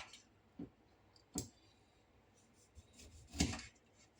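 A few scattered light clicks and taps, the sharpest just over a second in and the loudest, a short knock, about three and a half seconds in: handling sounds during lemon preparation.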